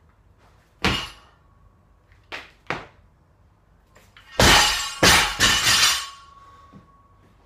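A loaded barbell with rubber bumper plates (75 kg) dropped from overhead crashes onto the floor about four seconds in, bouncing several times with metal clanking of bar and plates. Before it, a sharp thud about a second in and two lighter knocks near three seconds, as the lifter's feet land in the jerk's split and step back together.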